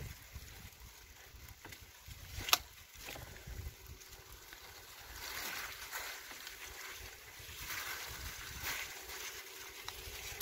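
Bicycle tyres rolling through wet slush and mud, a soft uneven swishing, with one sharp click about two and a half seconds in.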